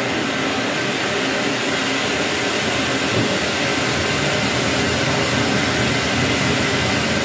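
Ground fountain firework (anar, flowerpot) spraying sparks with a loud, steady hiss.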